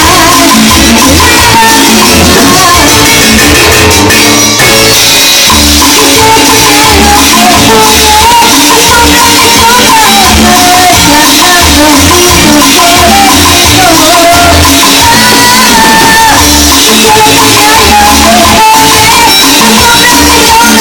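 Loud music with a steady low beat, shaken percussion and a wavering melody line.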